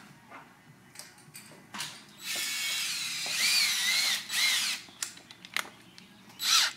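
Cordless drill motor run for about two and a half seconds, its whine wavering up and down in pitch as the trigger is worked, then a second short burst near the end. A few light clicks of handling come before it.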